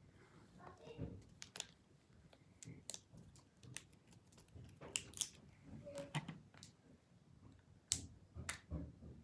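Small plastic fidget toys being handled, giving faint, irregular clicks and taps.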